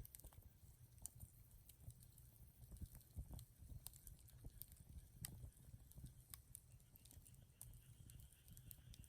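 Wood fire crackling faintly, with irregular sharp pops and snaps over a low rumble. A faint steady high-pitched sound joins near the end.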